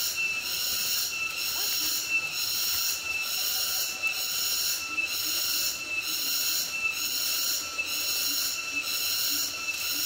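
Cicadas calling in the forest: a steady high-pitched buzz that pulses evenly, a little more than once a second.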